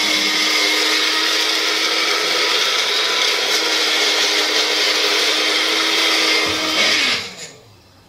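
Personal blender's motor running at full speed, its blade grinding coffee beans: a steady high whine over a dense grinding hiss. About seven seconds in it is switched off and winds down with a falling pitch.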